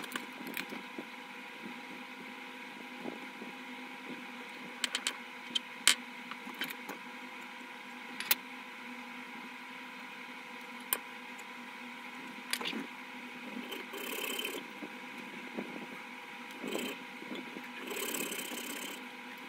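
Small metal bench vise being loosened and retightened on a thin wooden strip: scattered light clicks and knocks of metal and wood over a steady background hum. Near the end come a few short rasping strokes as a junior hacksaw starts into the wood.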